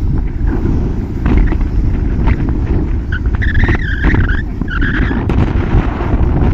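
Road and wind noise from a moving vehicle, a steady rumble, with a wavering high-pitched squeal for about two seconds in the middle.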